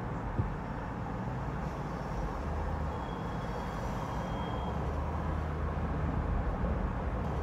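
City street traffic noise picked up by a roof-mounted camera on a moving car: a steady low rumble of engines and tyres, with a faint thin high tone for about a second and a half midway.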